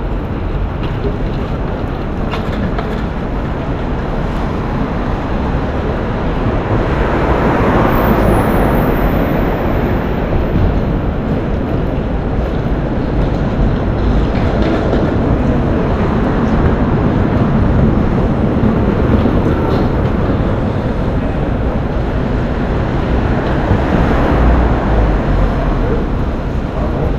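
Loud, steady rumble of passing vehicles, swelling several times as vehicles go by.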